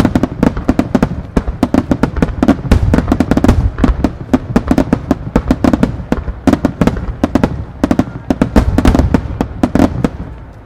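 Fireworks barrage: shells fired and bursting in quick succession, with sharp bangs several times a second and deeper booms among them, easing off near the end.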